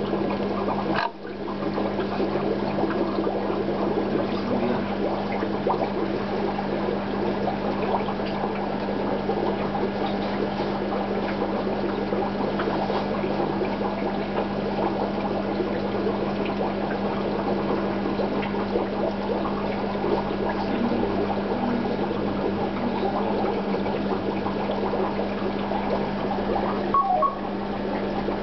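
Air-driven double sponge filter bubbling steadily in an aquarium, a continuous watery gurgle with a steady low hum beneath it.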